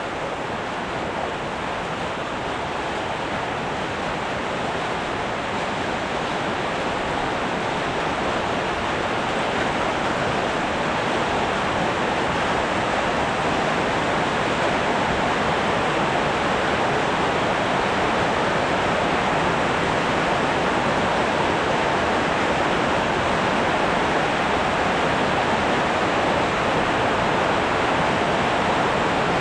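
Steady rain falling, an even hiss that grows slowly louder over about the first half and then holds.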